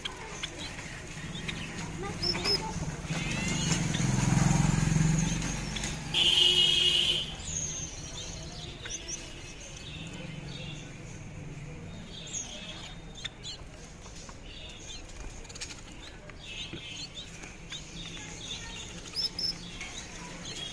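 Small birds chirping in short high notes. There is a louder flurry of wing flapping about three to six seconds in, followed by a brief harsh burst of noise.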